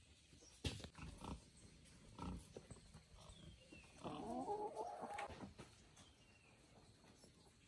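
An animal's call lasting a little over a second, about four seconds in, after a few light knocks.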